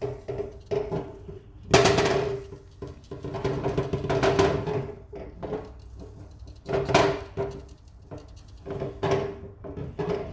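Activated charcoal granules shaken out of a fuel filter's built-in charcoal canister, landing on the table in several short rattling bursts. A steady background music tone runs underneath.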